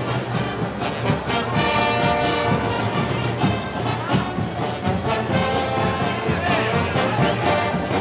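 Brass band playing music with a steady percussion beat, the brass holding sustained chords.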